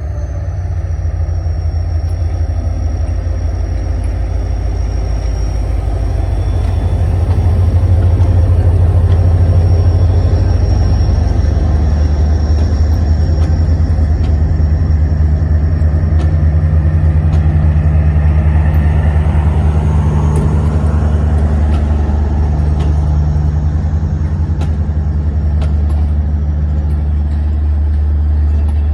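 Diesel locomotive engine running hard and close as the Pakistan Express train pulls out, a deep steady rumble that grows louder about seven seconds in. Sharp clicks come through in the second half.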